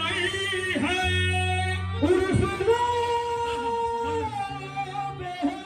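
Live qawwali: men singing into microphones over harmonium drones. In the middle a voice holds one long steady note for about a second and a half.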